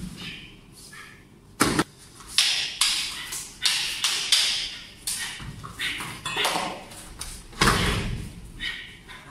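Bare feet and bodies slapping and thudding on foam floor mats during stick-grappling sparring: a string of sharp slaps and taps, then a heavier thud about eight seconds in as a partner is taken down to the mat.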